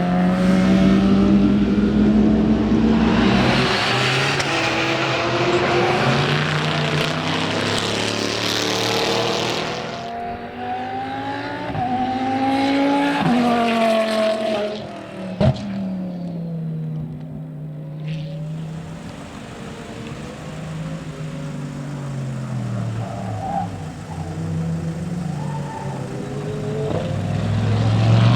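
Racing car engines on track. A loud close pass fills the first third, then engines climb in pitch and drop back at each gear change. A single sharp crack comes about halfway through.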